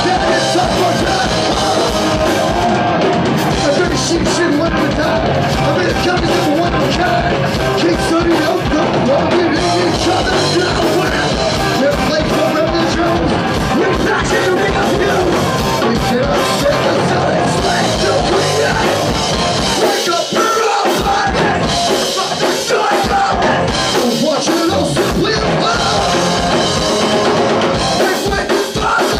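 A punk rock band playing live: shouted singing over electric guitars and drums, with a brief drop-out of the low end about twenty seconds in.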